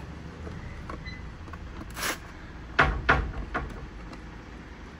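Hand tools being handled and set into a moulded plastic tool-kit case: a few sharp clacks and knocks, starting about two seconds in and bunched over the next second and a half.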